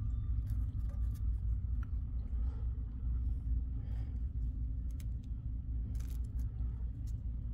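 Steady low background rumble, with faint scratches and ticks from a marker writing on a wooden wall stud.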